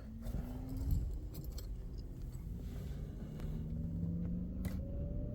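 A car key jangling, with a few light clicks, over a faint low hum.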